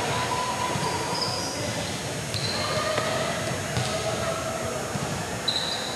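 Busy gymnasium hubbub echoing in a large hall: distant voices, volleyballs thudding on the hardwood floor now and then, and short high squeaks.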